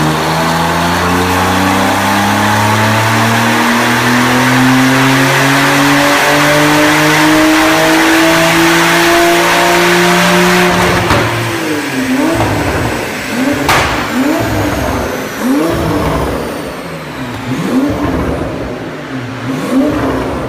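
730 hp 2016 Porsche 911 Turbo S's twin-turbo flat-six on a chassis dyno, rising steadily in pitch through a long full-throttle pull for about eleven seconds, then lifting off. A sharp crack follows, and the engine is blipped in a series of short revs while a high whine falls away.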